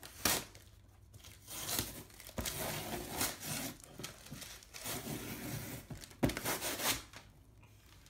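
Paper packing material being pulled out of a cardboard shipping box, rustling and crinkling with tearing sounds in irregular bursts.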